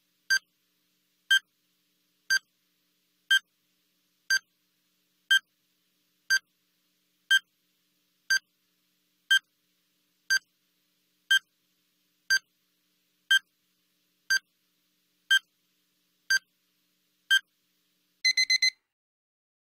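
Countdown timer's electronic beep sounding once a second. Near the end it gives a quick burst of four higher beeps, the alarm marking the end of the countdown.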